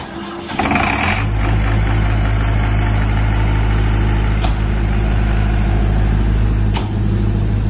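82 kVA diesel generator set in a soundproof canopy being started: a click of the key, a brief crank of the starter, and the diesel engine catches about a second in, then runs steadily. Two sharp knocks follow as the canopy doors are shut, and after the second one it is slightly quieter.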